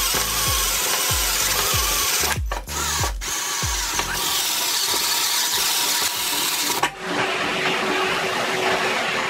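Cordless drill with a step drill bit boring through the car's steel trunk-lid sheet metal, stopping briefly twice. About seven seconds in it cuts to a vacuum cleaner with a brush nozzle running steadily, picking up the metal filings.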